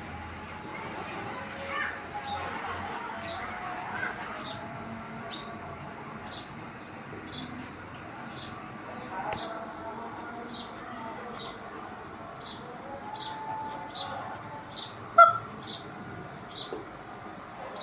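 A bird calling over and over: short, high, falling chirps about once a second. A brief, sharper and louder sound cuts in about fifteen seconds in.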